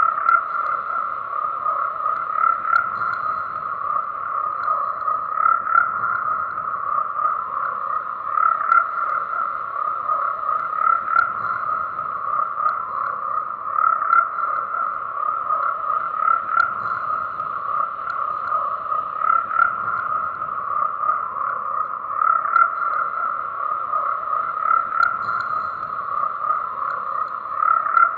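A dense chorus of frogs calling, many overlapping croaks merging into a steady, pulsing drone with no pauses.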